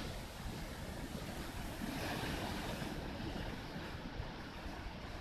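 Strong wind and rough waves stirred up by Typhoon No. 16, a steady rushing noise.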